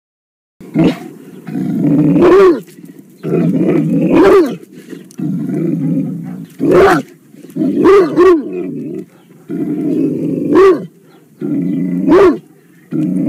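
Tosa Inu growling and barking: stretches of low growling, each broken off by a loud bark, about seven times.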